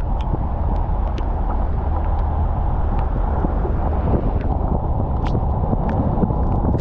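A car driving in the rain: a steady low road and tyre rumble, with irregular sharp ticks of raindrops striking the car.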